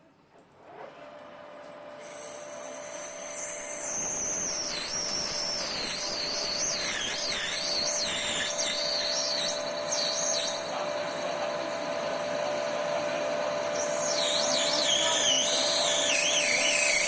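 An electric motor running steadily, building up over the first few seconds, with a high whine that wavers up and down in pitch.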